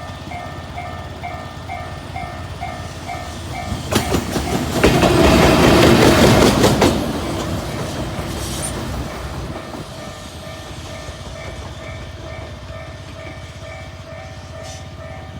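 Japanese level-crossing warning bell ringing about twice a second, while a JR Freight EF210 electric locomotive running on its own passes about four seconds in: a loud rush of wheels on rail with sharp clacks over the rail joints, lasting about three seconds, after which the bell keeps ringing.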